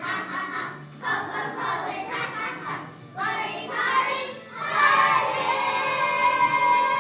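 A group of children singing together in short phrases, ending in a loud long held note over the last two seconds.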